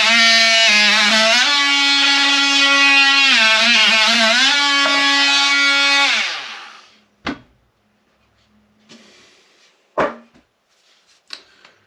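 Guitar music playing loudly through a Milwaukee 18-volt jobsite radio turned all the way up, cutting off about six and a half seconds in. A few sharp knocks follow.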